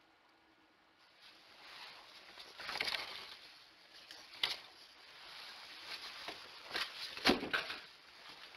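Rustling and scraping with several sharp knocks and clicks at uneven intervals, the loudest knock near the end.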